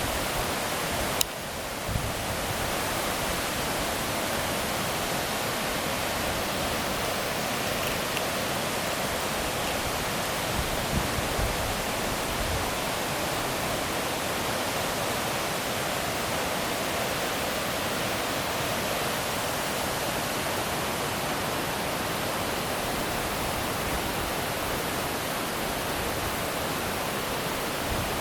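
Steady rushing of a waterfall, the water's continuous roar running without change. A short click about a second in.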